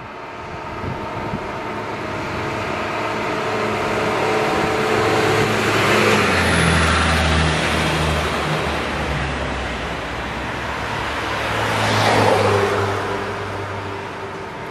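Road traffic passing close by: a steady rush of tyres and engines, with two louder vehicle pass-bys about six and twelve seconds in, each carrying a low engine hum.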